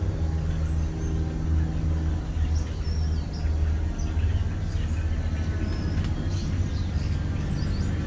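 Low, steady hum of a motor vehicle engine running, with short high chirps and whistles of European starlings over it from about two and a half seconds in.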